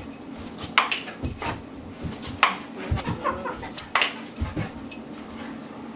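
Dog whining and giving about four short, sharp yips while it jumps up at a raised hand.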